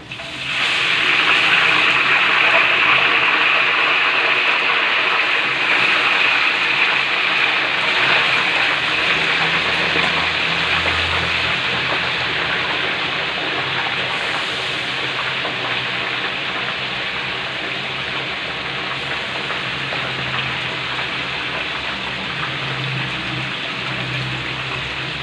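Marinated chicken pieces being deep-fried in hot oil in a wok. A loud, steady sizzle starts about half a second in as the wet pieces go into the oil, then slowly eases.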